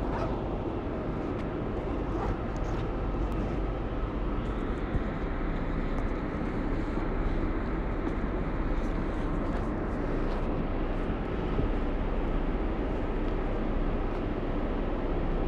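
R188 subway train standing at the platform with its doors open, giving off a steady low hum as it idles.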